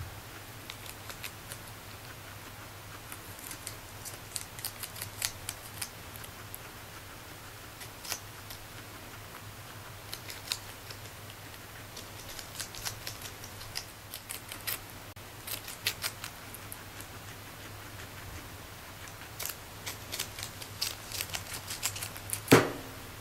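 Guinea pig biting and chewing leaf lettuce: clusters of crisp, snipping crunches with pauses between them. Near the end there is one loud knock with a short ringing tail.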